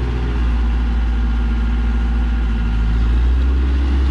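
Engine of a log-laden cargo truck running steadily, a deep low drone with a steady hum above it.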